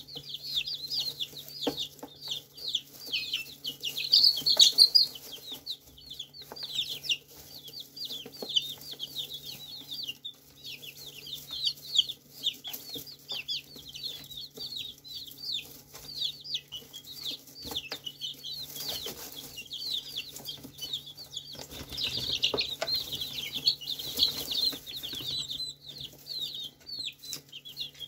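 A brood of young chickens peeping almost nonstop, many short, high, falling cheeps overlapping, louder in spells. Faint ticks of pecking and scratching in the hay, over a steady low hum.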